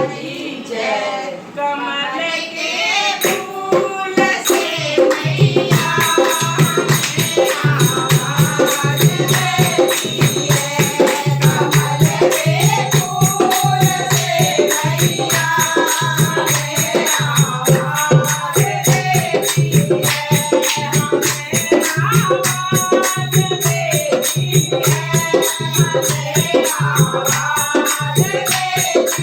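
Hindi devotional bhajan being sung, with jingling hand percussion keeping a steady beat that comes in about five seconds in.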